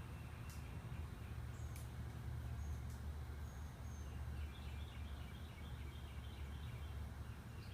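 Outdoor ambience: a steady low rumble of wind on the microphone, with birds chirping. A quick run of repeated chirps starts about halfway through.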